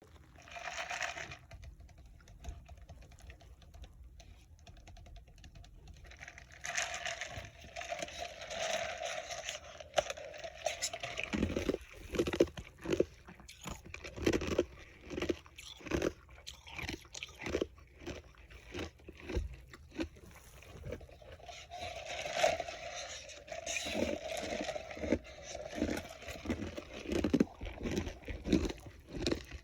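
A person biting and chewing ice, the crunches coming sharp and repeated, about one a second, from about ten seconds in.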